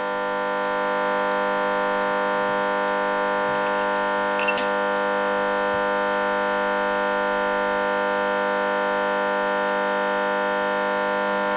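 An electric motor running with a steady, buzzing whine. It comes up to speed over the first second.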